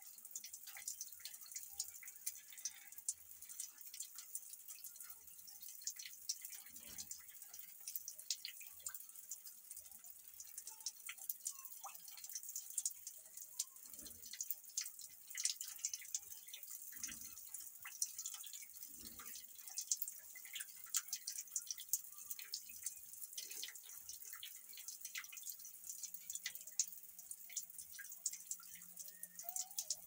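Water dripping in irregular small ticks, with a few soft low thumps now and then.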